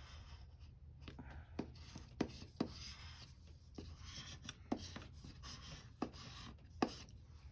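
Paper stickers being peeled from a sticker sheet and rubbed down onto a planner page: soft paper rubbing with about six light clicks and taps spread through.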